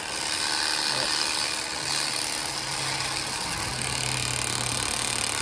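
Electric fillet knife running steadily as its buzzing reciprocating blades cut the skin off a bluegill fillet.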